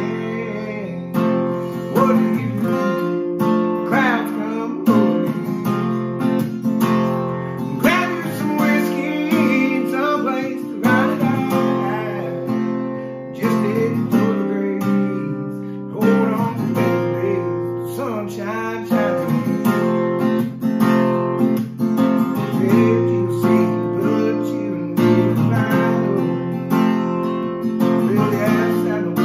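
Acoustic guitar strummed steadily, ringing chords in a rhythmic country accompaniment.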